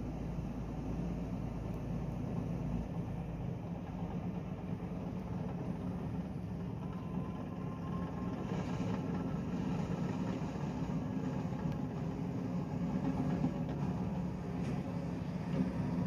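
Steady low drone of heavy diesel earthmoving machinery: a Hitachi hydraulic excavator running as it digs, with a Komatsu D85SS bulldozer close by.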